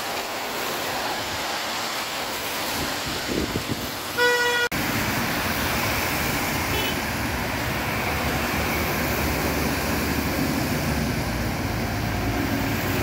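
Road traffic on a rain-wet road: a steady hiss of tyres on wet tarmac and passing engines, with one vehicle horn toot about four seconds in, lasting about half a second.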